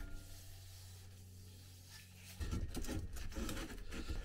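Greased steel exhaust pipe being forced into the sleeve of an intermediate silencer section: metal rubbing and scraping in short, uneven strokes. It starts a little over two seconds in, after a quiet stretch with a faint low hum.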